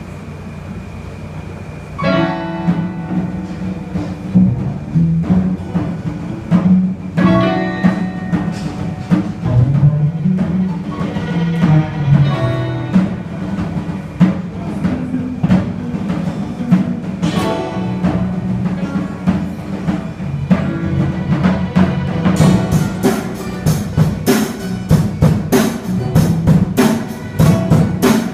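Instrumental music with percussion: after about two seconds of low background noise, music starts with strong low notes and struck accents, and near the end a drum kit comes in with a quick, steady beat.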